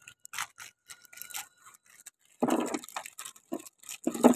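Clear plastic parts bag crinkling and small black plastic foosball parts rattling and clattering on the table, in many short rustles with two louder rattles about midway and near the end.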